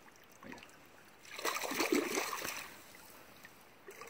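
Water splashing as someone wades through a shallow creek, a burst of about a second and a half in the middle.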